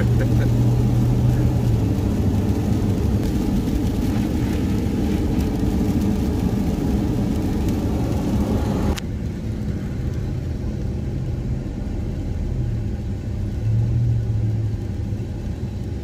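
Car in motion heard from inside the cabin: a steady low road and tyre drone with a hiss over it. The hiss drops away suddenly about halfway through, leaving the low drone.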